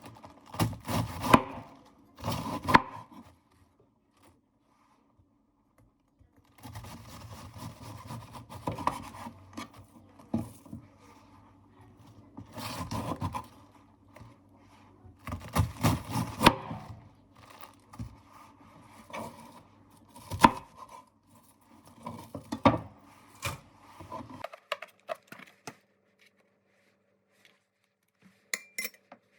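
Irregular knocking, rubbing and scraping of objects being handled, in a short burst at first and then a longer stretch of about seventeen seconds.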